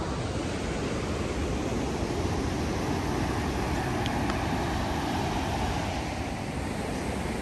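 Una River rapids rushing steadily: an even roar of white water with a heavy low rumble.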